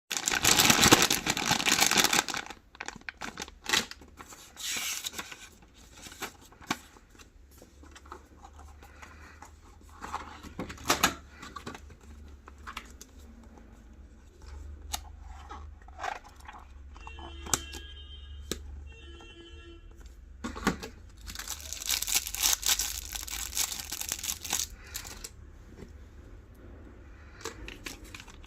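Paper being torn and handled for a handmade journal: long rustling tears at the start and again near the end, with scattered taps and clicks of paper and tools between.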